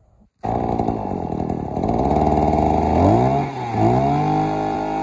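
Maruyama BC23 23cc two-stroke brush cutter engine catching on its spring-assisted recoil starter with the choke closed, starting abruptly about half a second in and running fast. Its speed dips and picks up again around three and four seconds in, then falls off near the end.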